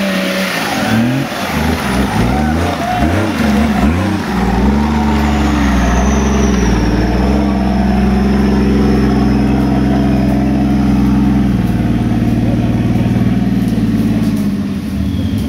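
Nissan Patrol 4x4's engine working through a rutted off-road section, revving up and down repeatedly for the first few seconds, then held at steady high revs, dropping to a lower pitch about eleven seconds in.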